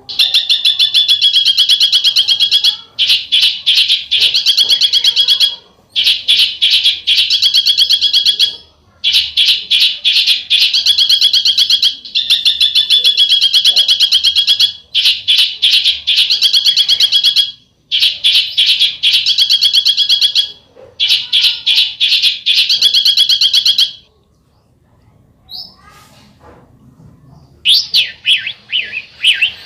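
A songbird's 'besetan' call: fast, harsh rattling trills, each two to three seconds long, repeated about eight times with short breaks. Near the end, after a pause, a run of quick sweeping chirps.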